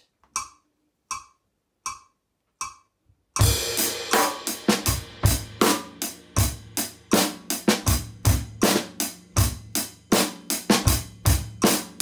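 Four metronome clicks at 80 BPM counting in, then an acoustic drum kit starts a steady groove about three seconds in: bass drum, snare and hi-hat/cymbal hits played in time with the click.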